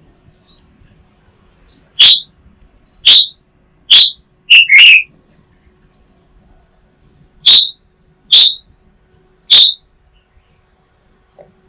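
A bird giving loud, short whistled calls: five in quick succession, the last two close together, then a pause and three more.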